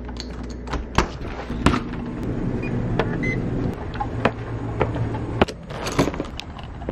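Front-door lock clicking and the door shutting, then footsteps going down concrete steps: a series of sharp clicks and knocks.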